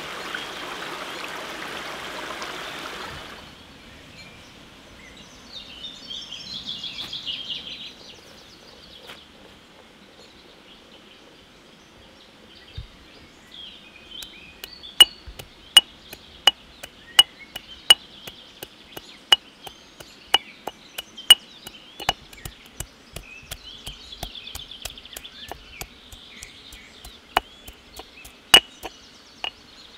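Running water that cuts off after about three seconds, then birds chirping, then from about halfway a long irregular series of sharp chopping strikes on wood, roughly one to two a second.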